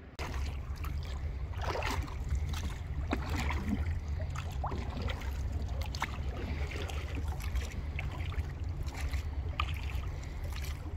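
Oars of a small rowed dinghy dipping and pulling through calm water, with splashes and trickling every second or so and occasional knocks, over a steady low rumble.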